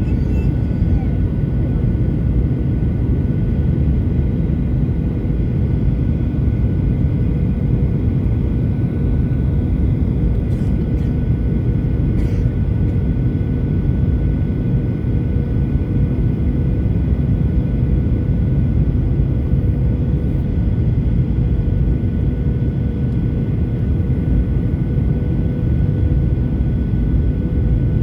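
Steady low roar of an airliner's engines and airflow heard inside the passenger cabin during the descent to land, with a faint steady hum over it.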